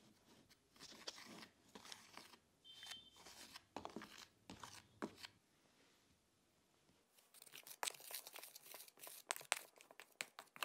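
Metal wire whisk scraping through dry flour and ground spices in a plastic tub, in irregular scratchy strokes that turn into quick, steady whisking about seven seconds in.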